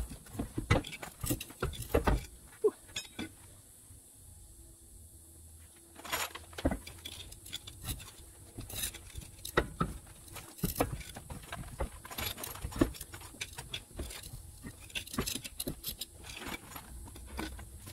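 Irregular metallic clinks and knocks as a heavy steel RV wheel with its tire is shifted and worked onto the hub by hand, with a brief lull a few seconds in.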